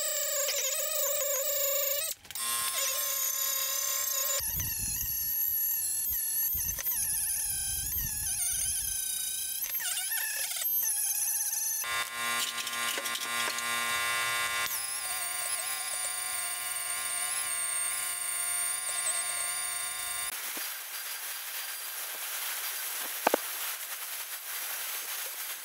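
Handheld air-powered rotary abrasive tool scrubbing rust from the inside of a cast iron pan, its whine wavering in pitch under load, in several passages that change abruptly. Near the end, a bench grinder's wire wheel brushing the pan's outside gives a rougher, noisier hiss.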